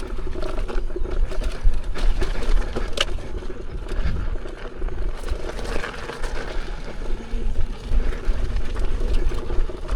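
Riding down a rough dirt trail: the wheel rolls and rattles over dirt and rocks, with wind rumbling on the microphone under a faint steady motor hum. One sharp knock comes about three seconds in.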